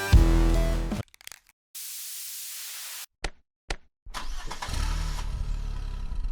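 Drum-heavy music stops abruptly about a second in. After a steady hiss and two short clicks, a car engine starts and runs steadily at idle.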